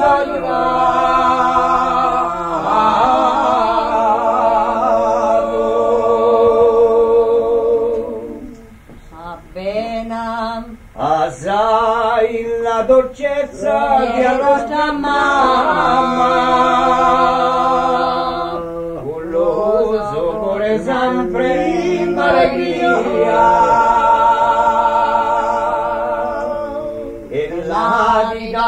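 A Corsican song sung by several voices in close harmony, holding long chords with vibrato. The singing pauses briefly about eight seconds in and again near nineteen seconds.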